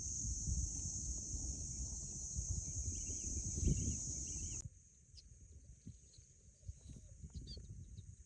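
Outdoor ambience: a steady high insect drone over a low rumbling noise, cutting off abruptly about halfway through to a quieter stretch with a fainter drone and a few short bird chirps.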